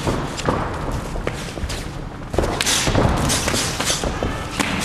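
Dull thuds of Muay Thai strikes, gloved punches and kicks landing, mixed with feet on the ring canvas, repeated irregularly and thickest in the second half.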